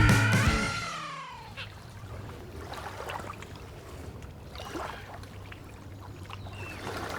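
Rock music fading out within about the first second, then faint outdoor ambience with a low steady hum and a few short, high chirps.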